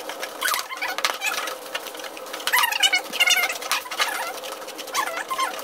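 Spoons clicking and scraping against plastic tubs as homemade slime is stirred, with short squeaky sounds scattered among the scrapes.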